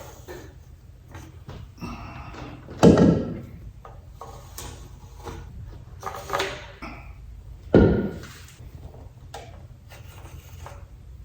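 Two loud knocks about five seconds apart, with lighter clatter and rubbing around them: heavy wooden pieces handled and set down on wood.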